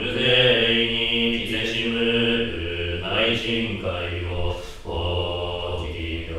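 Jōdo Shinshū service chanting: a voice intoning a wasan hymn verse to the nidō melody, drawing each syllable out in long held notes, with a short break about three-quarters of the way through.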